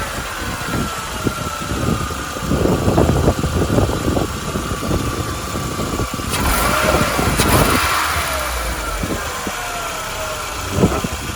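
VW Bora 2.0's four-cylinder petrol engine running just after being started, with a whine that slowly falls in pitch as the revs settle. It stumbles briefly now and then.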